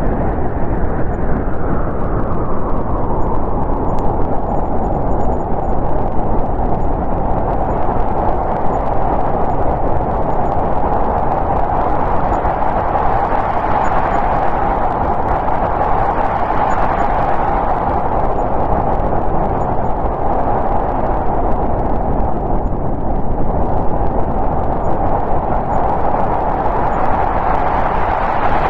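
Snowstorm wind blowing steadily, its pitch rising and falling in slow gusts.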